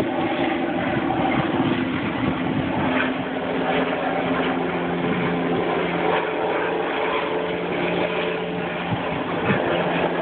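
Sheriff's helicopter flying away after take-off: a steady engine and rotor drone whose hum drops lower about halfway through.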